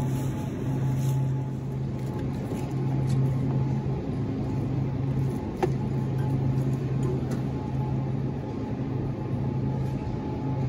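Steady low hum and rumble of supermarket background noise, with a single sharp click about five and a half seconds in.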